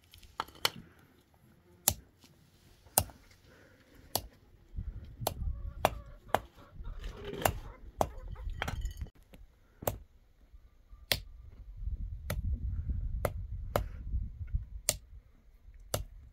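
Back of a small hatchet striking small green berries on a flat stone to crush them: sharp, separate knocks at uneven spacing, roughly one a second. A low rumble comes and goes between the knocks.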